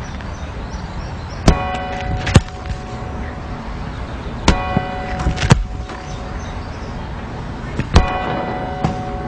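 Footballs kicked off the grass with sharp thuds, and a clock-tower bell striking three times about three seconds apart, each stroke ringing on for about a second.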